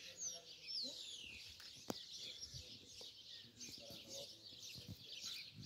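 Small birds chirping steadily, many quick overlapping chirps, faint, with one sharp click about two seconds in.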